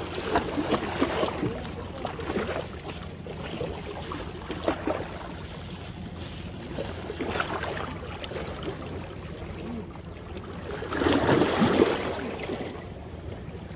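Small sea waves washing and splashing against shoreline rocks, rising and falling unevenly, with a louder surge about eleven seconds in.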